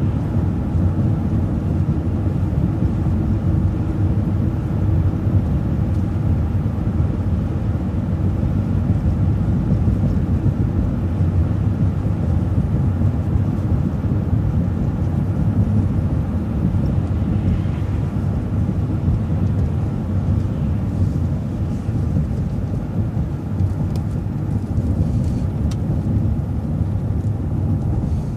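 City bus running along its route: a steady low engine and road rumble heard from inside the bus.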